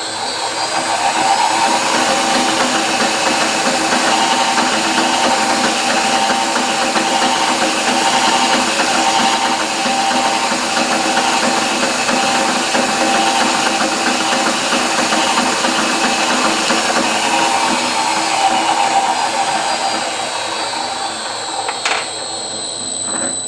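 Bench drill press running steadily, its spindle turning a magnet-loaded demagnetizer. It gets louder over the first second or two and stops abruptly at the end.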